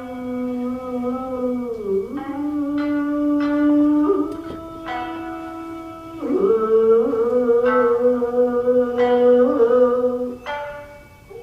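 Japanese classical dance music: a singer holding long notes that slide from one pitch to the next, over sharp plucked shamisen notes every second or so.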